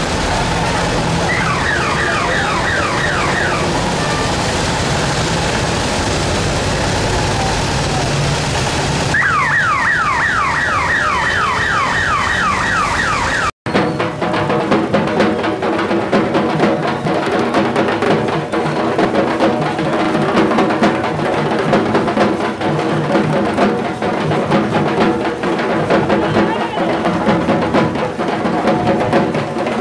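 Street noise broken twice by a rapidly repeating, falling electronic warning tone. After a sudden cut about halfway through, loud drum-driven music from the Durga immersion procession plays with a steady beat.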